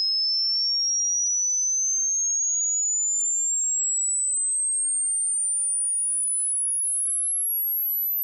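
Hearing-test sine-wave sweep: a single very high, thin pure tone gliding smoothly and steadily upward in pitch.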